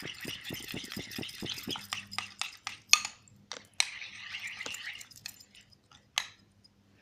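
Utensil stirring a thick mix of shower gel and shampoo in a bowl, clinking and scraping against the bowl in quick repeated strokes. The strokes thin out to a few separate clicks near the end.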